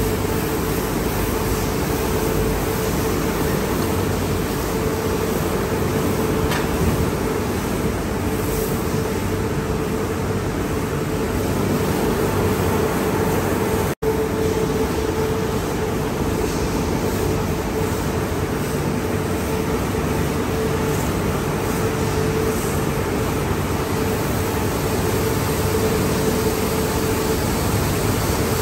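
Automatic car wash tunnel running: a steady hiss of high-pressure water jets over a constant drone of pumps and machinery, with a steady hum. The sound drops out for an instant about halfway through.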